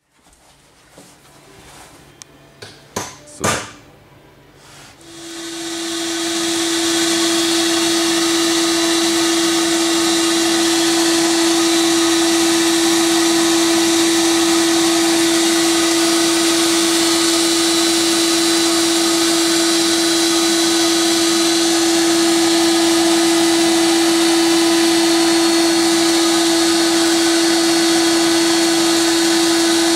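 A few sharp knocks, then an abrasive blasting cabinet starts about five seconds in. Its air-and-grit blast gives a loud steady hiss over a steady hum.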